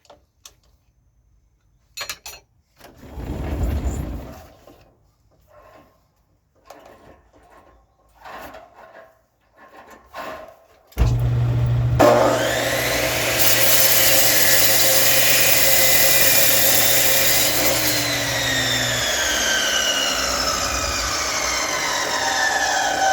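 Scattered knocks and handling noises, then about eleven seconds in a woodworking lathe switches on and runs loudly with a steady electric hum while the spinning wood is worked. Near the end the hum stops and the pitch falls away as the lathe winds down.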